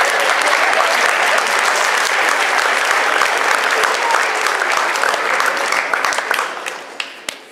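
Audience applauding: many hands clapping together at a steady level that fades away near the end.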